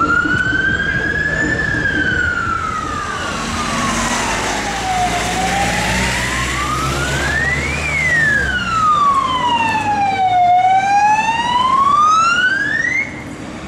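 Police car siren sounding a slow wail, rising and falling about every five seconds over traffic rumble, then cutting off suddenly near the end.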